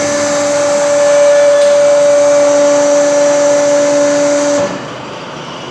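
Vertical hydraulic baling press's electric motor and hydraulic pump running with a steady hum, cutting off suddenly near the end. The motor stops between strokes rather than running continuously.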